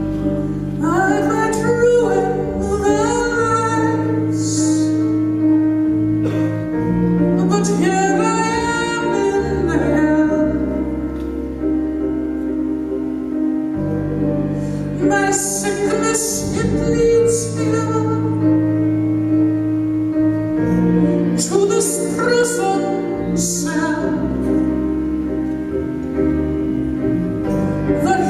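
Live cabaret band music: a man sings in phrases in a high falsetto over piano, double bass and drums, with a long held note and a moving bass line beneath.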